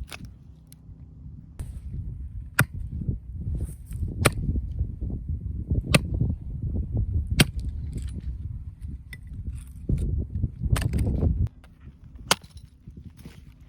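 A 5 kg axe striking firewood: about six sharp, cracking blows, roughly one every one and a half seconds, over a low rumble that drops away near the end.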